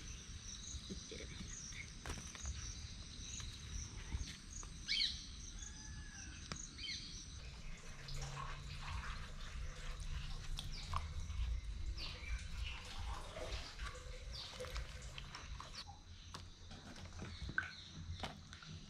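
Birds chirping over a high pulsing trill for the first seven seconds or so. After that come small splashes and drips of water as termite mushrooms are moved by hand in a metal basin of water.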